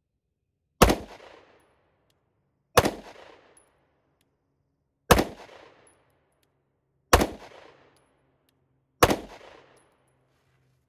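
Five pistol shots from a 9mm Walther PDP F-Series, spaced about two seconds apart, each with a short ringing echo tail.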